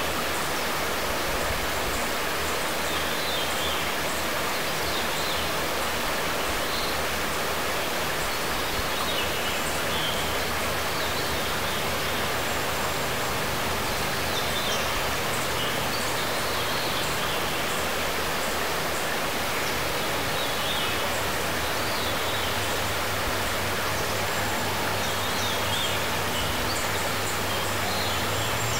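Steady rush of running water, with faint short high bird calls every few seconds.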